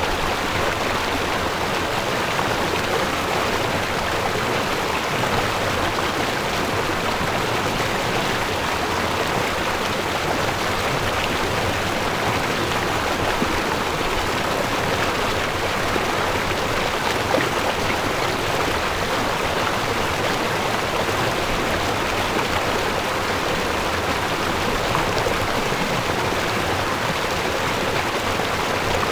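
River or stream water flowing over rocks, a steady rushing babble without pause.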